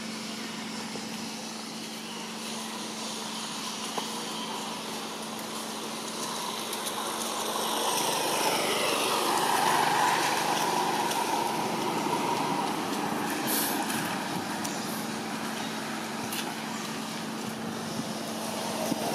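A motor vehicle driving past: its engine and road noise build to a peak about halfway through with a falling pitch, then fade away.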